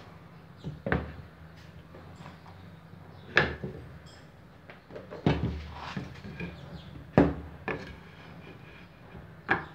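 Handling knocks and clicks as drill bits are picked up and one is fitted into a Bosch GSR 7-14 E corded drill: about five sharp clunks a second or two apart.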